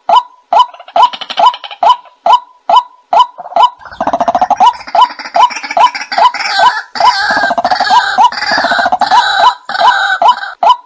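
White-breasted waterhen calls played as a bird-calling lure: a sharp, hooked note repeated about two and a half times a second, joined about four seconds in by a louder, harsher run of overlapping calls.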